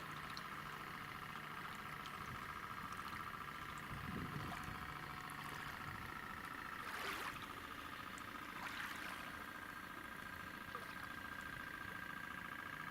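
Radio-controlled model tugboat's electric drive running with a steady high whine, joined by two brief rushing sounds about seven and nine seconds in.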